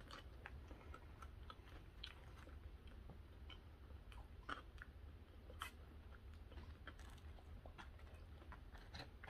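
Faint close-up chewing of food, with scattered soft mouth clicks and smacks.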